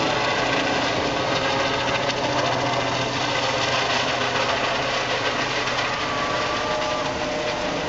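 Eurocopter EC135 air ambulance helicopter climbing away overhead: a steady rotor beat over turbine whine, slowly fading.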